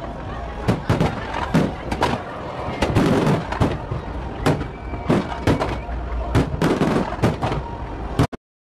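Fireworks display: aerial shells bursting in a rapid string of bangs, about two or three a second, over a continuous crackle. The sound cuts out abruptly just before the end.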